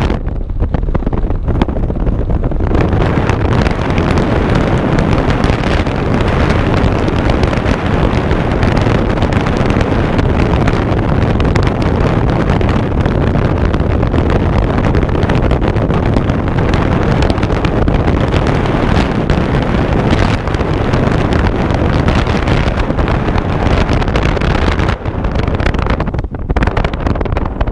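Steady rushing wind buffeting the microphone, mixed with the road and engine noise of a vehicle driving along, easing a little near the end.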